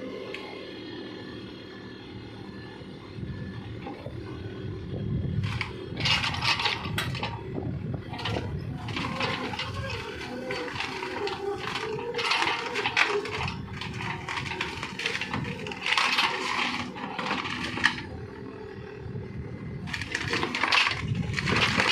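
Mini excavator engine running steadily, with repeated bursts of metallic clanking and scraping that start about five seconds in.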